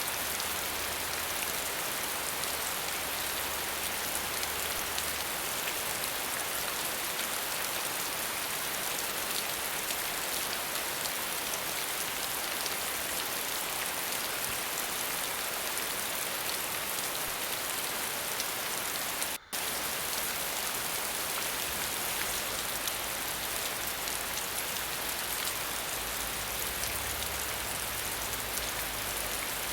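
Waterfall: a steady, dense hiss of falling water, heavier in the high range, broken once by a split-second gap about nineteen seconds in.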